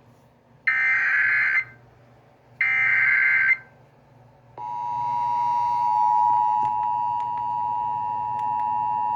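Emergency Alert System SAME header: two short, identical screeching digital data bursts about two seconds apart. About four and a half seconds in, the steady two-tone EAS attention signal starts and holds. Together they announce an alert, here a flash flood warning.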